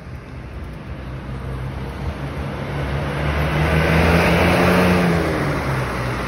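Diesel engine of a high-deck tour coach pulling away past at close range, its low engine note and hiss growing louder to a peak about four seconds in, then easing as it moves off.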